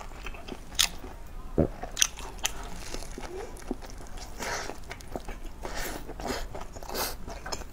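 Close-miked biting and chewing of a crispy golden wrap. Sharp crunches come every second or two over a soft, steady chewing sound.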